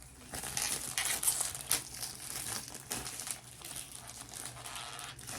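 Packing paper crinkling and rustling in irregular bursts as it is handled and pulled aside during unboxing.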